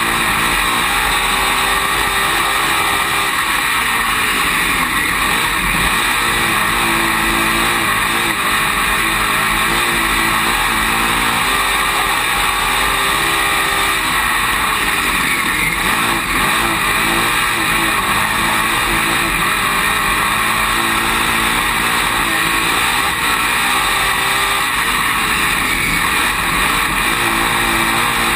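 Dirt late model race car's V8 engine at racing speed, heard from inside the cockpit. It repeatedly rises and falls in pitch as the car accelerates and lifts through the laps, over a steady rush of noise.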